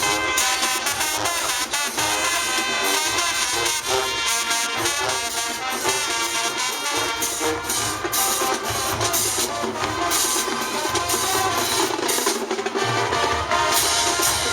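High school marching band playing, brass over marching drums.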